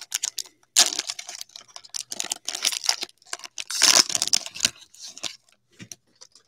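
Cellophane wrapper of a trading-card cello pack crinkling and tearing as it is opened, in several short spells, the loudest about four seconds in.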